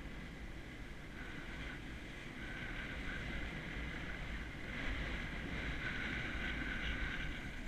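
Skis sliding and scraping over packed snow during a downhill run, with wind rumbling over the microphone. The scraping grows louder about two thirds of the way through.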